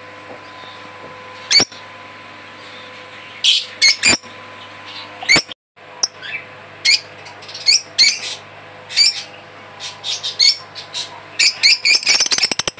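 Caged birds calling: repeated short, sharp, high chirps and squawks, some in quick clusters, with a brief break partway through.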